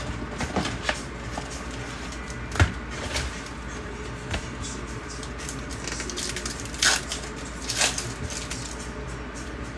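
2020 Bowman Mega Box packaging and baseball card packs being opened and handled by hand: scattered crinkles, rustles and small snaps, the sharpest about two and a half seconds in and again near seven and eight seconds.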